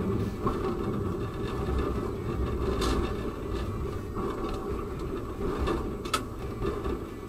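A tram running along its track, heard from inside the driver's cab: a steady low rumble of motors and wheels on rail, with two sharp clicks, about three and six seconds in.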